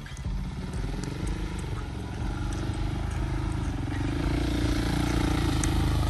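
A motorcycle engine running as the bike rides up the road toward the listener, growing steadily louder.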